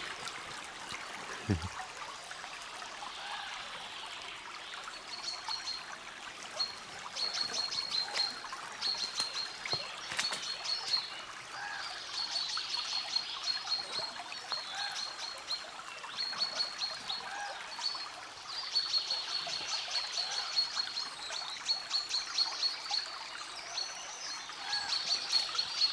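Small taiga river running and trickling steadily over stones. From about five seconds in, a high, quickly repeated chirping trill comes in short runs, with a few fainter bird calls lower down.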